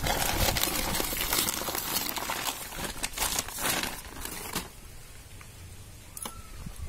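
Plastic sack crinkling and rustling as sweet potatoes are tipped out of it into a steel plate, with sharp knocks of the tubers, for about the first four and a half seconds; after that it is much quieter, with a faint short whistled note near the end.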